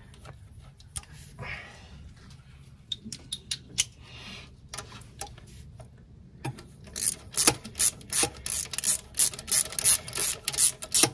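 Light metal scraping and scattered clicks as a new fuel injector and its holder are pushed into place. Then, about two-thirds of the way through, a ratchet wrench on a long extension starts clicking quickly and evenly, about four clicks a second, tightening down the injector hold-down bracket.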